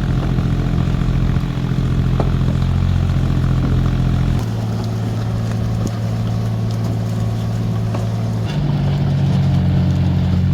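Amphibious excavator's diesel engine running steadily, its pitch shifting abruptly about four seconds in and again about eight and a half seconds in.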